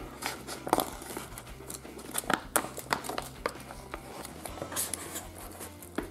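Glossy plastic toy pouch crinkling in the hands as it is pulled and torn open at the top, with irregular sharp crackles.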